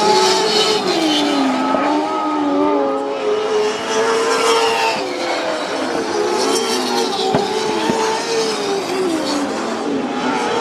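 Several Lightning sprint cars racing together, their high-revving motorcycle engines rising and falling in pitch as they go through the turns.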